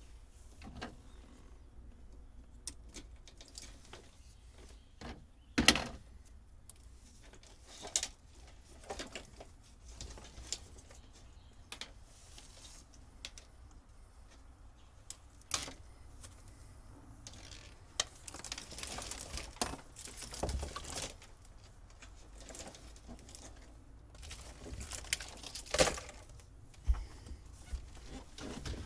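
Scattered clicks, knocks and rustling from hands-on work pulling and handling old wiring in a boat, with a sharp knock about six seconds in and another near the end.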